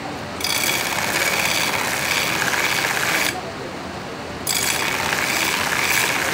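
Belt grinder's abrasive belt grinding a steel knife blade, grinding a distal taper that thins the blade toward its tip. The grinding drops out briefly at the start and again for about a second in the middle as the blade is lifted off the belt, then resumes.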